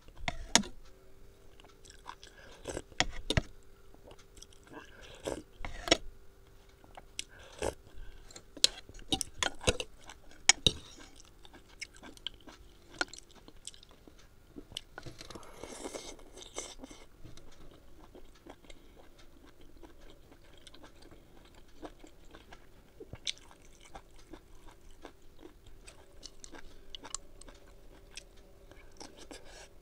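Close-up eating sounds: wet chewing and biting with many sharp mouth clicks through the first ten seconds or so, then a longer slurp around the middle as noodles are sucked in, followed by softer chewing.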